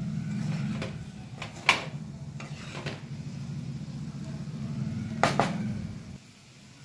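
Wooden spatula stirring cooked potatoes in a stainless-steel kadhai, scraping and knocking against the pan with a few sharp taps. The loudest come just under two seconds in and again just after five. A low steady hum underneath stops near the end.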